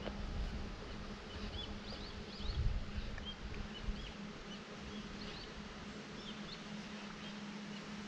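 Quiet outdoor ambience with many short, high chirps from distant small birds scattered throughout, over a steady low hum. A brief low rumble comes about two and a half seconds in.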